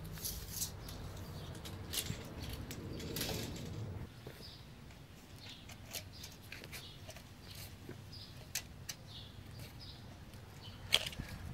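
Faint scattered clicks and light rustles from a steel tape measure being pulled out and handled along a braided stainless oil hose.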